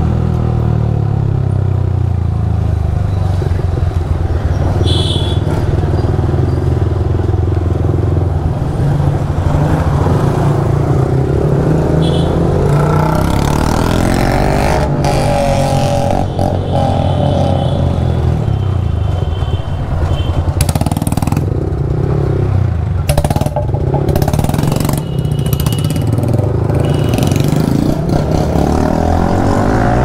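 Yamaha R15 V3's single-cylinder engine breathing through an aftermarket Akrapovic full-system exhaust, ridden at low speed in second gear, the exhaust note rising and falling with the throttle.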